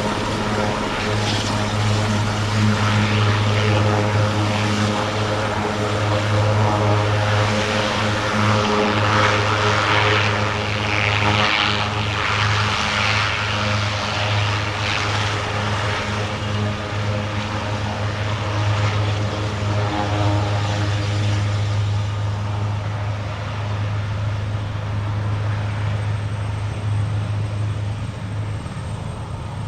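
Eurocopter AS332L1 Super Puma helicopter running close by: a steady low rotor drone over the rush of its twin turboshaft engines, easing off slightly near the end.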